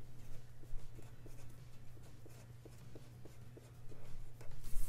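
A pen writing on paper, the tip making short, light scratchy strokes as letters are drawn, over a steady low hum. Near the end comes a louder rustle.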